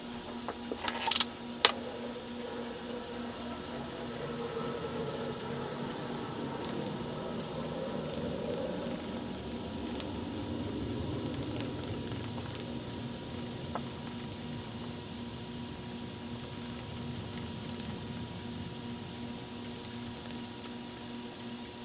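Aquarium filter running: a steady hum with a low tone and a faint watery trickle. A few light clicks in the first two seconds.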